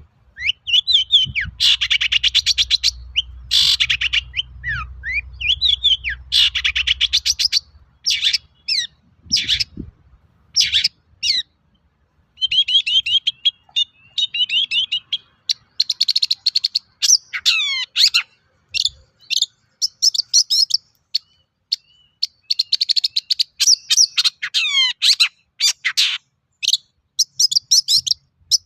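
Long-tailed shrike (cendet) singing a varied, continuous song: rapid chattering trills, quick rising and falling whistled notes and short harsh phrases, with a brief pause about eleven seconds in.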